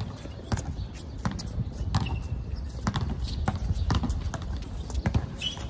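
Basketball bouncing on a hard outdoor court amid players' running footsteps, a knock every half second to second, with a short squeak about two seconds in.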